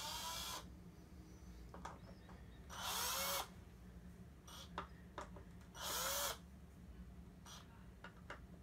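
Small electric screwdriver run in three short bursts about three seconds apart, the motor's pitch winding up and falling away each time, as it works the small screws holding a replica championship belt's side plates. Light clicks and taps between the bursts.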